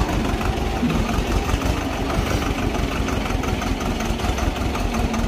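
Swaraj 724 XM tractor's two-cylinder diesel engine running steadily under load as the tractor pulls its sunk rear wheel out of a pit, towing a disc harrow.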